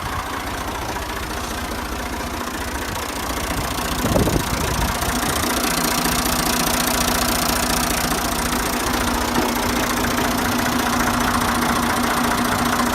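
Massey Ferguson MF 40E tractor engine running steadily. About four seconds in there is a brief surge, after which a steady hum joins in and the running gets a little louder.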